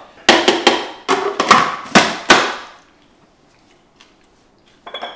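A spatula knocking and scraping against the plastic bowl of a Kenwood food processor, about eight sharp knocks in quick succession over the first two and a half seconds. A short ringing clink follows near the end.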